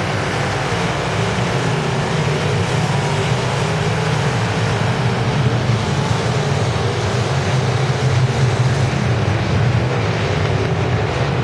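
A pack of dirt-track race cars running flat out around the oval, their engines blending into one steady, loud, low drone.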